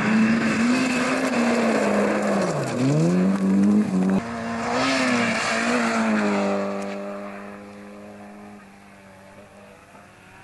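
Peugeot 205 GTI 1.9 rally car's four-cylinder engine at full throttle on gravel, its revs rising and falling with a deep dip about three seconds in, over a hiss of spraying gravel. After an abrupt cut the car passes again, and its engine note holds steady and fades as it drives away.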